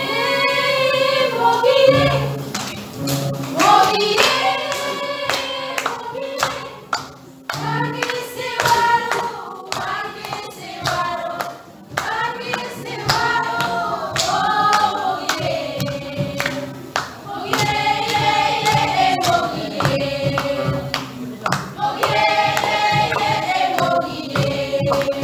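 A small mixed choir of young women and men singing a lively song together in parts, with many sharp percussive hits through the singing.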